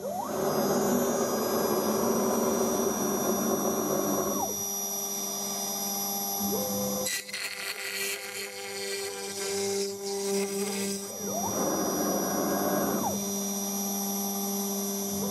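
DIY CNC router running: a steady spindle hum and whine, with two stretches of louder motor noise as the gantry moves. Each stretch rises in pitch as it starts and falls as it stops. The first lasts about four seconds, and the second comes near the end.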